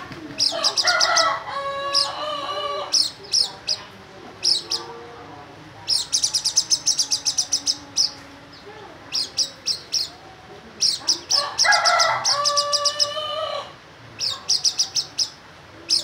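Caged white-eye (pleci) singing hard, in rapid bursts of high chirps and trills. A rooster crows twice in the background, about half a second in and again about eleven seconds in.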